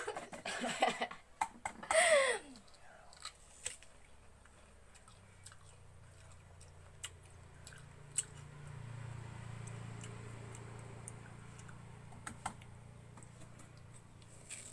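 A person chewing and biting soft fruit, with scattered small mouth clicks and smacks. A short vocal sound comes near the start. A low hum swells in the middle and fades again.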